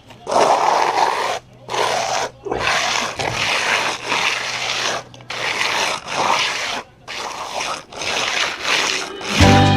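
Steel trowel scraping wet concrete resurfacer across a concrete driveway in repeated strokes, about one a second. Music comes in near the end.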